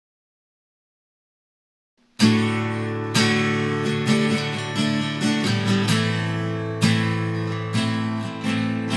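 Silence, then music starts suddenly about two seconds in: acoustic guitar strumming chords.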